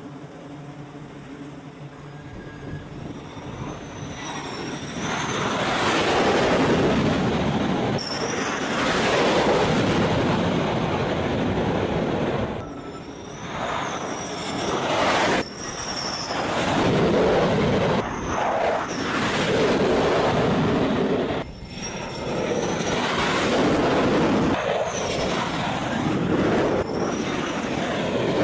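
Jet aircraft engines running at full power for catapult launches off a carrier deck: a loud rushing noise with a high whine gliding above it, swelling about five seconds in and cutting off and returning several times.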